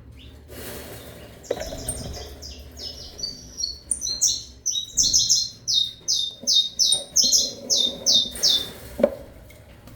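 Saffron finches giving a rapid run of high, down-slurred chirps that starts about a second and a half in, grows louder and stops shortly before the end. A single knock comes about nine seconds in.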